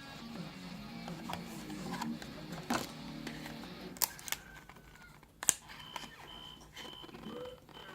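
A few sharp clicks and taps from handling an eyelash curler and its packaging, the loudest about five and a half seconds in. From about six seconds in, a faint high beep repeats a few times a second.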